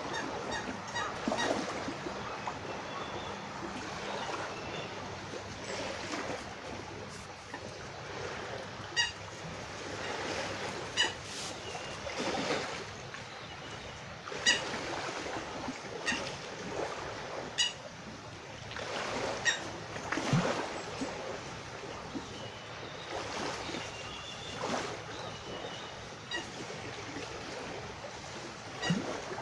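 Outdoor ambience: a steady wash of noise that swells and fades, with short bird calls repeated every few seconds.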